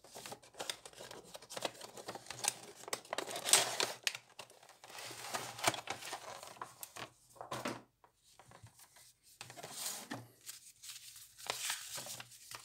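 Clear plastic blister packaging crinkling and rustling as it is handled and slid out of a cardboard box, with a short pause a little past the middle. Paper leaflets rustle as they are leafed through near the end.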